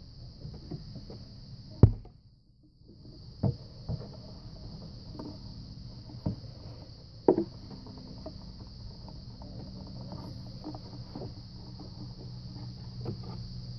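Air intake duct being handled and worked into place in an engine bay: several sharp knocks and clunks of the duct against the hoses and housings, the loudest about two seconds in, with lighter rubbing and tapping between them. A steady high hiss runs underneath.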